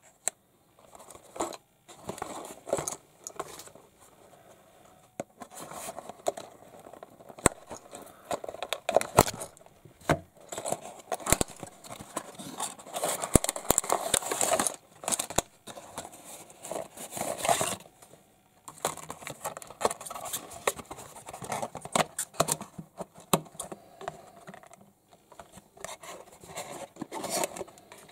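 Small plastic toy-figure parts and their packaging handled by hand: irregular clicks and taps mixed with crinkling and rustling, busiest in the middle, with a brief lull about two-thirds through.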